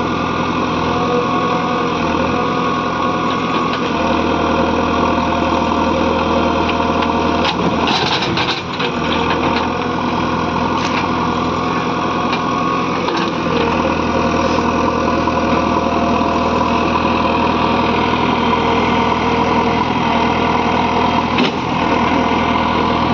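JCB 3DX backhoe loader's diesel engine running steadily, with a few knocks from the machine, the busiest about eight seconds in.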